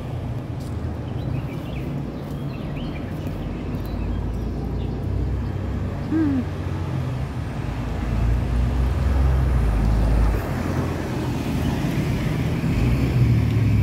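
Steady road traffic noise on a city street, with a vehicle passing more loudly about eight seconds in, for two seconds or so.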